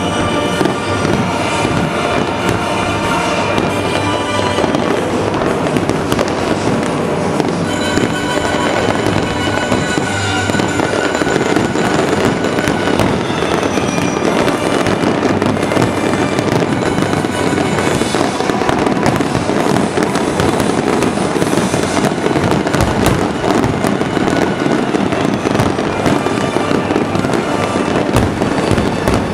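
Aerial firework shells bursting in a dense, continuous barrage, with crackling and popping, over a loud music soundtrack with sustained tones.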